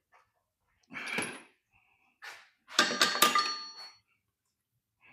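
Metal clanking as the crankshaft is lifted out of the engine block: a knock about a second in, then a louder run of clangs about three seconds in with a lingering metallic ring.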